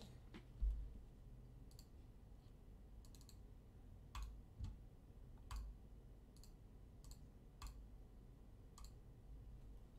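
Irregular light clicks, about a dozen spread unevenly, several with a soft low knock under them, at a quiet level.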